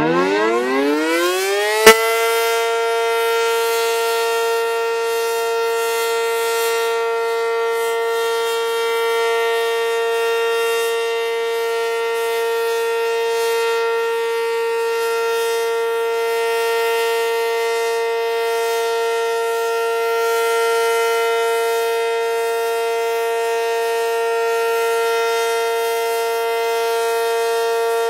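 ACA Cyclone 120 storm siren starting up for a test: its tone rises steeply in pitch for about two seconds, then holds a steady, loud alert tone. A single sharp click comes about two seconds in.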